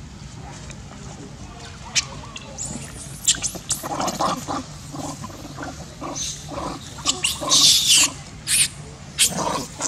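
Long-tailed macaques calling: a run of short grunting calls starting about three seconds in, then a louder, harsh call about three-quarters of the way through.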